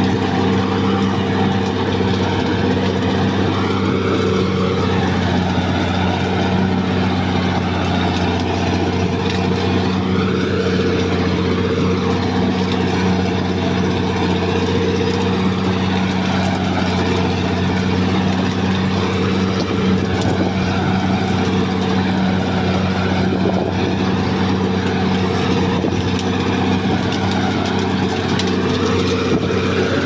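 Caterpillar D6R XL crawler bulldozer's diesel engine running steadily as the machine creeps forward, a constant low drone with a fainter higher whine that slowly wavers up and down.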